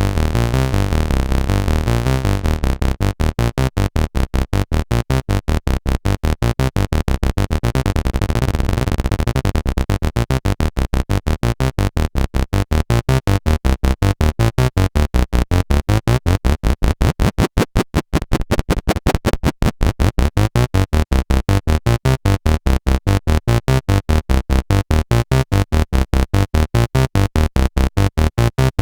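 Behringer MS-1 analog monosynth playing a fast sequenced bass line of short, staccato notes, several a second, recorded dry. Its tone brightens and darkens as the pattern runs.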